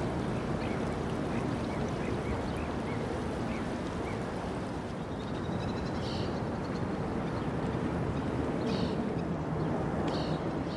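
Ducks quacking a few times over a steady background rush, with short calls about halfway in and again near the end.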